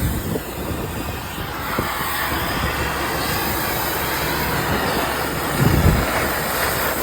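Gas torch burning with a steady, even hiss while heating metal, with a short low rumble about six seconds in.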